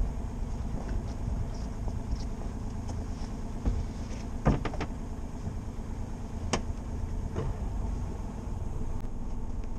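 Sailing yacht's inboard engine running steadily at low revs. A few sharp knocks come around the middle, two close together and then one more.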